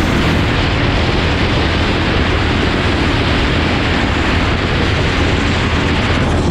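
Loud, steady wind noise buffeting a helmet-mounted camera's microphone at speed, with a Harbor Freight Predator 212cc single-cylinder engine running at full throttle underneath on a top-speed run.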